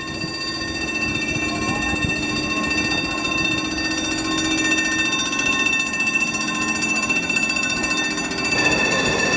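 Snaefell Mountain Railway electric tramcar moving slowly along its rails. A steady high metallic whine of several tones sits over a fast rattle.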